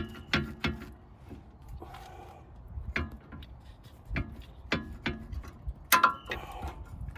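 Irregular metallic clicks and knocks as brake caliper hardware, the caliper and its retaining spring, is handled and worked loose, the loudest about six seconds in.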